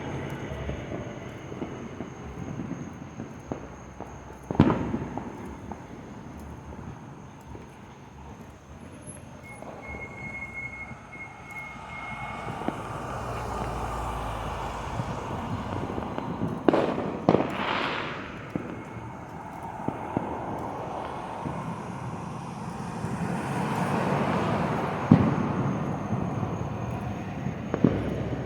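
Fireworks going off: a sharp bang about five seconds in, a cluster of bangs past the middle and another near the end, over a rushing noise that swells and fades between them.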